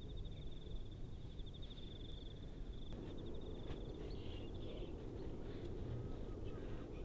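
Insect trilling outdoors, a high, finely pulsed chirr repeated in runs, over a low steady rumble.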